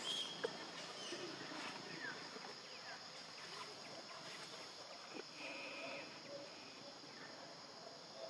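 Steady outdoor insect chorus, a constant high buzzing, with a few faint clicks and a brief short call about two-thirds of the way through.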